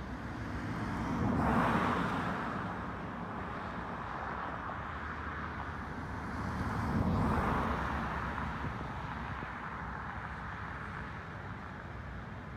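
Two cars passing on the road, the first about a second and a half in and the second about seven seconds in, each swelling and fading over a couple of seconds over a steady background hiss.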